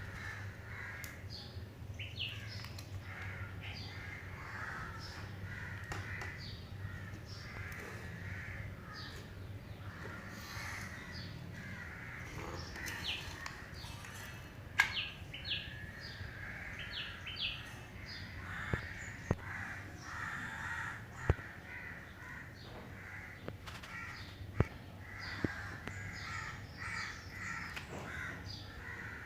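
Birds calling repeatedly in the background, with a steady low hum underneath. Half a dozen sharp clicks stand out in the second half.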